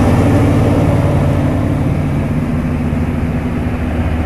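Heavy diesel truck engine running steadily at low speed close by as a loaded truck rolls slowly past.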